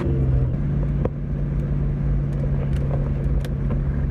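2001 Ford Mustang with a new aftermarket exhaust, running at steady low revs under way with an even low drone that settles slightly lower about half a second in. A single sharp click about a second in.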